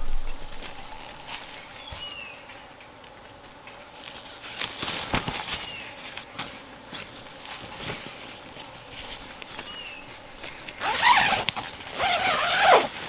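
Rustling and handling noises of camping gear with scattered clicks, a few faint short high chirps, and two louder scraping strokes about a second long each near the end.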